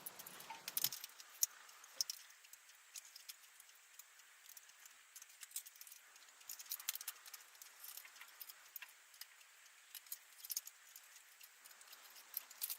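Scattered light metallic clicks and rattles of hand tools and a motorcycle brake caliper being handled, with no steady sound between them.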